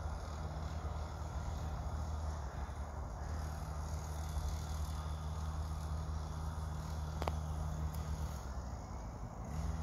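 Engine of a 50cc XTM Pro Rider mini dirt bike running with a steady low hum that dips briefly twice, with insects chirping.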